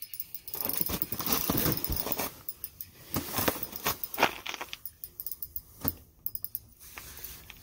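Handling noise: rustling of winter clothing and fishing gear being moved about, with irregular clicks and light metallic rattles.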